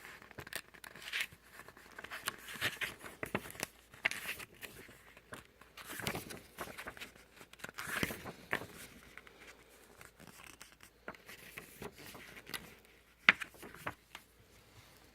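Album packaging being handled: irregular rustling, scraping and crinkling of paper and card, with scattered clicks and one sharp click about 13 seconds in.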